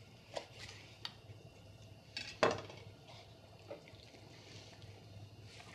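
Kitchen knife cutting through a raw bird's skin to split the breast in half, with a few light knocks of the blade; the loudest comes about two and a half seconds in.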